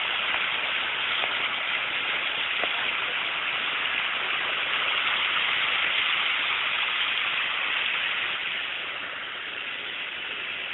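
A car driving through deep floodwater: a steady rush of water spraying and churning along the side of the car, easing off near the end as the water gets shallower.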